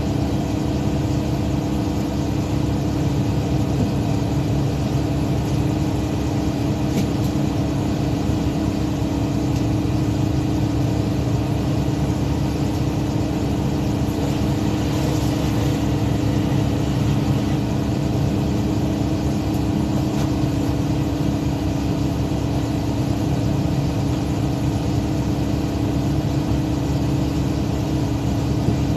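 A fishing boat's engine running steadily, an even drone that holds the same speed throughout.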